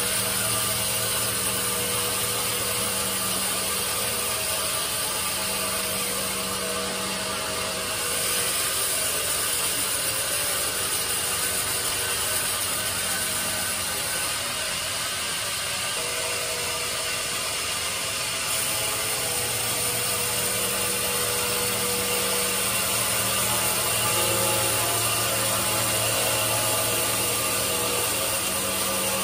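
Band sawmill running steadily, its blade sawing through a log on the carriage, with a constant machine hum under the cutting noise. The noise shifts about eight seconds in.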